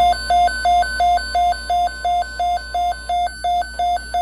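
Weather alert radio's alarm beeping for a severe thunderstorm watch: short, evenly spaced electronic beeps, about three a second.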